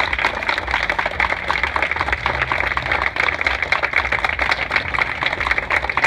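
Crowd applauding: a steady, dense patter of many hands clapping at once.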